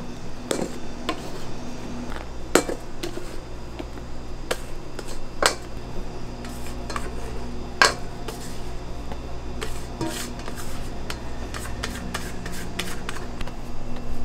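Plastic spatula scraping and knocking against stainless steel mixing bowls while meringue is scraped out and macaron batter is folded, giving a scatter of sharp clicks and clanks. A steady low hum runs underneath.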